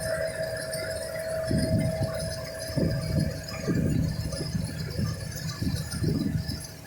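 Combine harvester running while picking soybeans: a steady machine hum and rumble, with irregular low thumps and rattles starting about a second and a half in.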